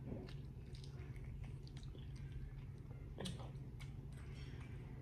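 A person chewing and biting seafood, with scattered small clicks and one sharper click about three seconds in.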